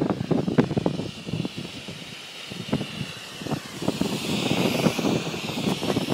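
Two burning coloured smoke bombs hissing steadily, swelling a little about four seconds in, over irregular low rumble and knocks from wind and handling on the microphone.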